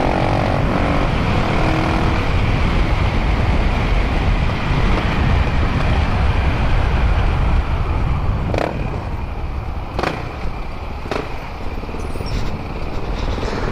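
Riding noise on a Honda CBX 250 Twister: wind rushing over the microphone with the motorcycle's single-cylinder engine running through a Dore aftermarket exhaust underneath. Three short sharp clicks in the second half.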